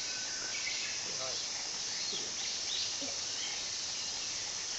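Steady, high-pitched chorus of insects chirring in the evening greenery, with faint voices talking briefly in the middle.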